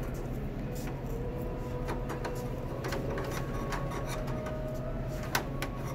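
Cable being pulled and worked through a checkout conveyor's frame: scattered light clicks and rubbing over a steady low hum, with one sharper click about five seconds in.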